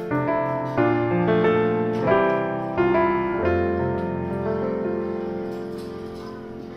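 Background piano music: a few struck chords, then a long held chord that slowly fades.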